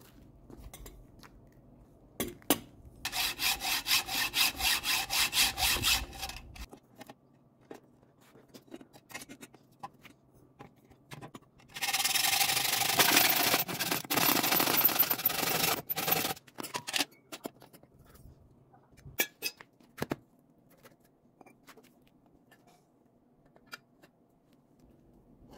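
Hacksaw cutting a metal bicycle tube with quick back-and-forth strokes, in two spells: a few seconds in, then a longer, louder stretch near the middle. Scattered clinks and knocks of parts being handled between them.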